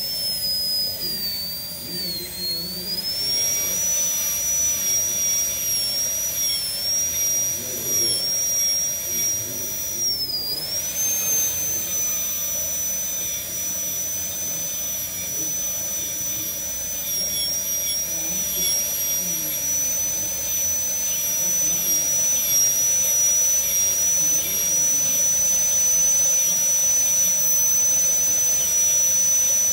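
High-speed air-turbine dental handpiece with a diamond bur, whining steadily at a high pitch as it cuts a model abutment tooth. The pitch sags briefly twice, about two and ten seconds in, as the bur takes load.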